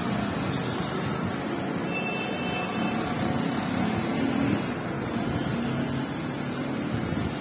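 Steady mechanical hum of running machinery, with a brief faint high tone about two seconds in.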